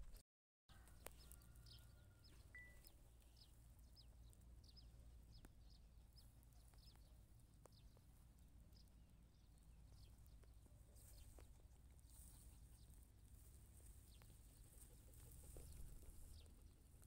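Faint, repeated short high chirps of birds, over a steady low rumble.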